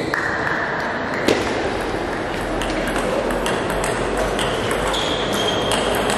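Table tennis balls ticking off bats and tables during a rally, with fainter ticks from other tables in play, over a steady hall background noise. The sharpest tick comes about a second in.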